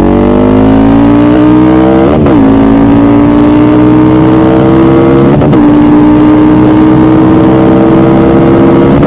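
Cruiser motorcycle engine accelerating hard under full throttle through the gears, heard from on the bike with wind rush. It shifts up twice, at about two seconds and five and a half seconds in, and again at the very end. Each shift drops the pitch suddenly before it climbs again, more slowly in each higher gear.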